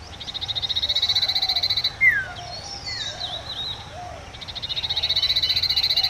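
Common iora (Aegithina tiphia) singing: a fast rattling trill, then a short down-slurred whistle and a few separate notes, then the trill again near the end. This is the call that the bird is said to use to call its own name, the source of local names such as cipoh and sirdung.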